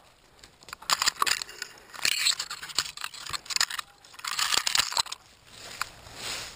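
Dry leaves, twigs and branches crunching and scraping in irregular bursts as someone pushes through thick undergrowth.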